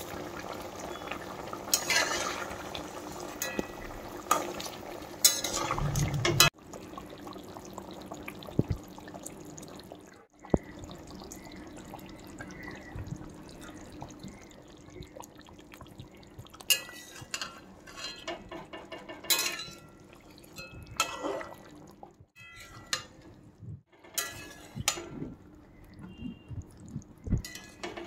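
Mustard gravy simmering in a metal kadai, with a steel spatula now and then scraping and clinking against the pan as it stirs.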